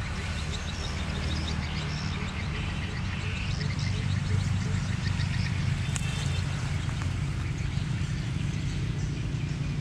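Small birds chirping repeatedly over a steady low rumble, with a sharp click about six seconds in.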